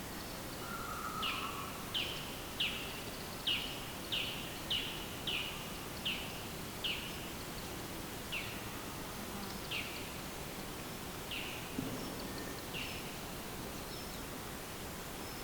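A bird repeating a short, downward-slurred call about a dozen times, roughly once a second, the calls spacing out toward the end, over a steady background hiss.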